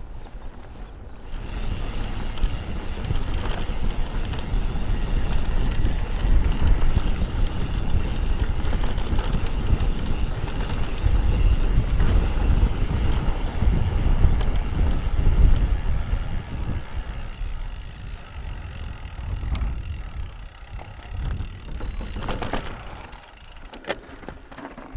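Mountain bike riding fast down a rough trail: wind buffets the microphone and the tyres rumble over the ground, with the chain and frame rattling. The noise builds about a second in and eases off over the last several seconds.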